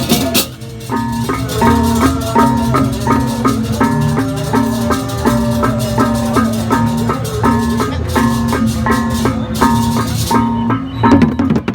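Balinese gamelan playing: tuned bronze gong-chimes struck in a fast, even repeating pattern over drums. Crashing cymbals drop out about half a second in and come back near the end.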